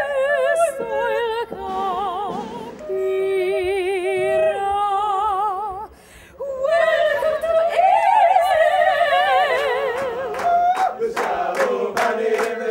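Women's voices singing opera with wide vibrato, with a short break about six seconds in. Near the end, hand claps come in under the singing.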